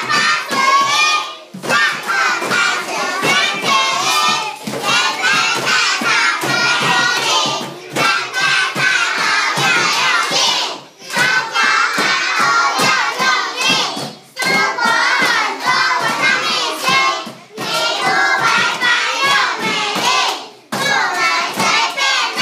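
A class of young children singing a Taiwanese Hokkien seven-syllable verse song (chhit-jī-á) together, line by line in phrases of about three to four seconds with brief breaths between, while hands tap out the beat.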